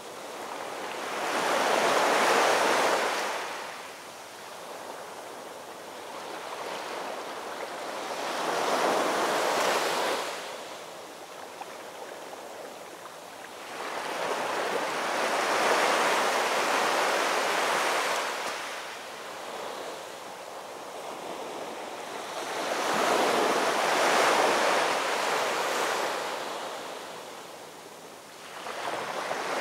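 Ocean surf: waves breaking and washing up the shore, each a rushing swell that builds and fades, about every seven seconds.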